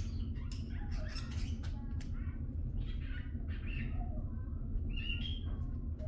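Cockatiel chirping and chattering in short broken calls with a few sharp clicks, and a brief whistled note near the end, over a steady low background hum.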